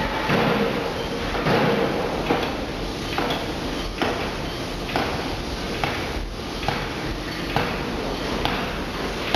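C66-35 electro-hydraulic forging hammer striking a glowing hot workpiece in a steady run of sharp blows, about one a second, over a constant factory hum.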